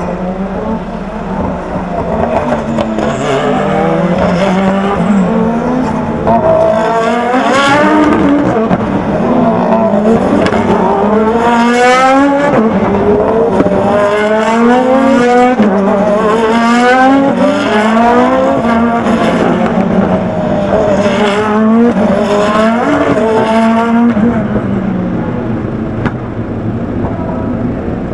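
A string of Super GT race cars, one after another, braking hard for a chicane and accelerating away, their engine notes falling and rising in pitch as they shift down and then up. The sound is loudest through the middle and thins out near the end as the pack passes.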